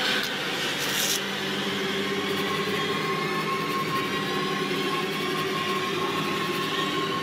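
A droning horror-film score: several low and mid pitches held steady together. A brief hiss sounds about a second in.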